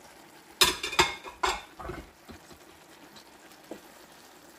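Slotted spatula knocking and scraping against a large skillet while stirring chunks of carrot and potato into a chicken stew: a few sharp clattering knocks in the first two seconds, then softer scrapes.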